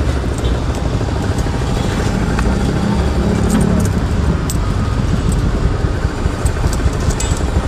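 Vehicle on the move: steady engine and road noise with a low rumble.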